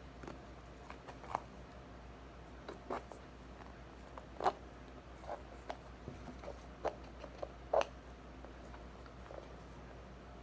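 A bath toy being cut open by hand: scattered soft snips and crackles with a few sharper clicks, the loudest about four and a half and nearly eight seconds in.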